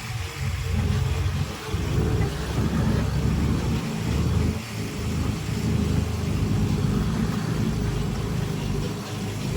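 Heavy earthmoving machine's diesel engine running under varying load, its low rumble rising and falling with brief dips.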